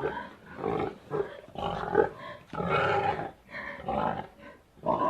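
Pig grunting and oinking: a run of about nine short, harsh calls, roughly one every half second.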